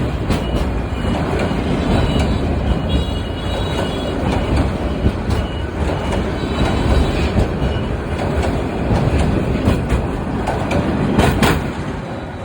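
Bangladesh Railway train passing close by, its carriages' wheels rumbling and clattering over the rails, with a few short high-pitched wheel squeals early on. The rumble drops away near the end as the last cars go by.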